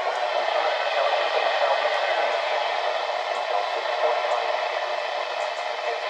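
Steady static hiss from a NOAA weather radio receiver between broadcast messages, with no low end.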